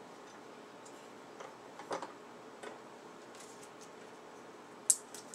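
Small parts of a Panavise 350 vise being handled and fitted together by hand: scattered light clicks and taps, with one sharp click near the end, the loudest sound here.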